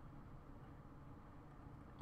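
Near silence: a rest between piano chords, with only faint steady background noise.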